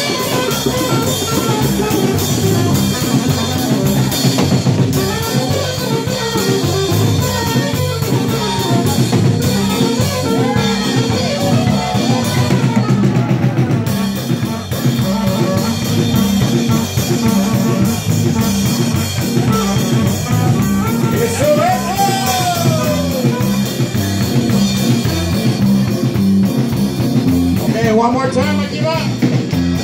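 A live band playing: drum kit and electric bass keeping a steady beat under saxophone and a singer.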